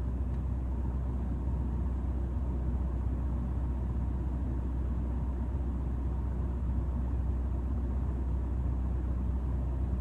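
Steady low hum and rumble with a faint hiss from a CB radio set left open on a quiet channel, with no station coming through.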